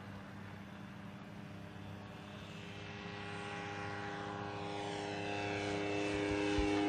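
Propeller engine of a Backyard Flyer single-seat ultralight aircraft droning steadily in flight, growing louder as the plane comes closer.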